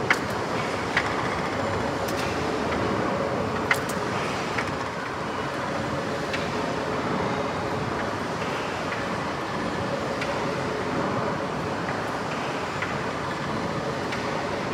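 Triple-expansion steam pumping engine running steadily: a continuous mechanical clatter with a faint steady hum, broken by occasional sharp clicks.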